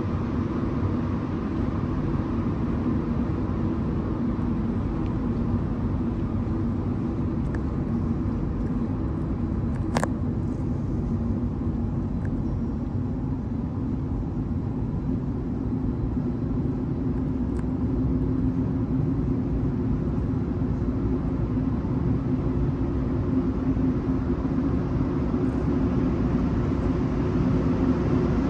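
Steady low rumble and hum of an underground metro station, growing a little louder near the end, with one sharp click about ten seconds in.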